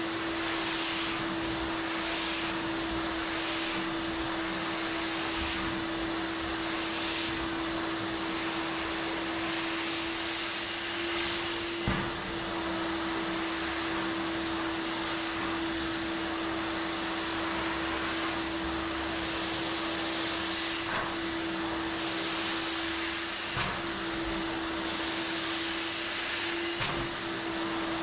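Vacuum cleaner motor running steadily with a constant hum, its rush of air swelling and fading about once a second for the first ten seconds, as if drawn in strokes over a rug. There is a sharp knock about twelve seconds in and a few lighter ones later.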